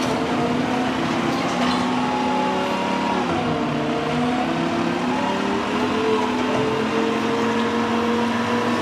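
Mack LR garbage truck with a McNeilus Meridian front-loader body running at raised revs to work its hydraulics. A steady whining hum drifts slowly in pitch while the lifting arms hold the emptied container over the hopper, then begin lowering it near the end.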